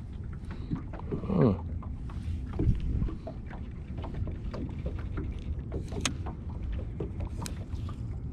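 Small fishing boat on the water: a steady low rumble of wind and water, with scattered light clicks and knocks throughout.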